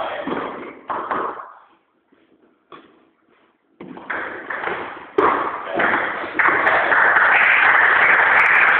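Table tennis ball knocking off bats and table during a rally. A single tap stands out in a quiet gap about three seconds in. From about four seconds on, a loud steady rushing noise builds up and covers the rest.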